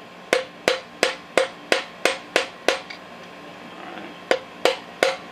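Wooden hammer tapping a piston down through a ring compressor into the cylinder bore of a Chevy 350 small-block V8. Sharp, even taps about three a second, eight in a row, then a pause and three more near the end.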